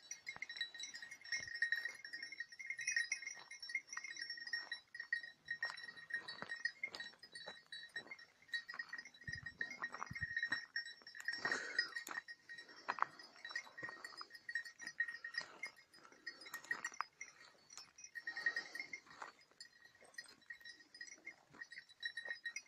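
Hare-hunting hounds giving tongue on a hare's trail, a run of short, high yelping cries that comes in thicker bunches twice. Bells ringing continuously underneath.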